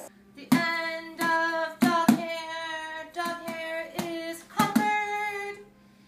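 Music: a melody of about eight held notes, each starting with a sharp pluck, that stops shortly before the end.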